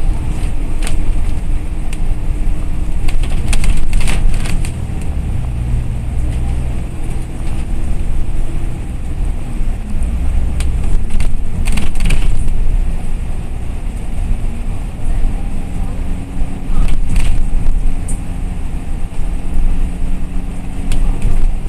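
Interior of a moving KMB bus at highway speed: a steady low engine and road rumble with an engine drone that shifts in pitch a few times. Sharp rattles of loose fittings come through now and then, clustered about a second in, around four seconds, near twelve seconds and around seventeen seconds.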